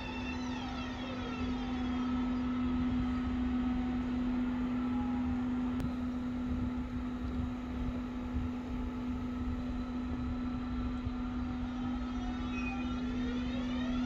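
Electric multiple unit train braking to a stop at a platform, its traction motor whine falling in pitch, then a steady electrical hum while it stands, with the whine rising again near the end as it creeps forward. A single sharp click sounds about six seconds in.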